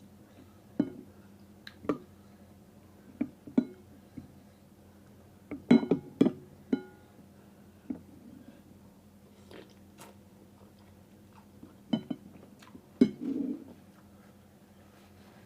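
Eating utensils knocking and clinking against a bowl at irregular intervals while someone eats noodles. Some strikes ring briefly, and the densest cluster of clinks comes about six seconds in.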